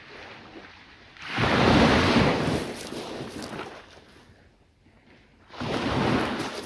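Waves breaking on the beach: two surges of surf, the first swelling about a second in and washing away over a few seconds, the second building near the end.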